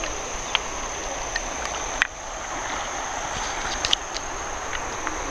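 Insects trilling steadily at one high pitch over an even rushing hiss, with a few small scattered clicks, one sharper about two seconds in.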